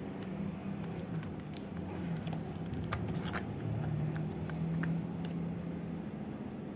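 Scattered light clicks of an LG A271 keypad phone being handled and its keys pressed, over a steady low hum.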